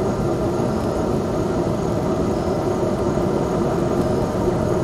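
Steady low droning hum with a faint steady tone in it, unchanging in level.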